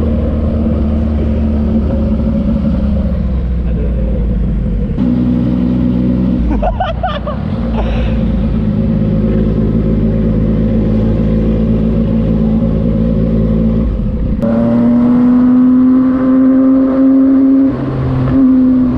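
Yamaha MT-09's inline three-cylinder engine running through a Racefit Slash aftermarket exhaust, holding a steady note. The pitch changes abruptly about five seconds in and again about fourteen seconds in, then rises slowly.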